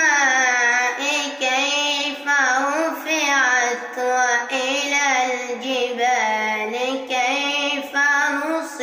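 A boy reciting the Quran in melodic tajweed style, drawing out the vowels with quick ornamental turns of pitch, in several phrases broken by short breaths.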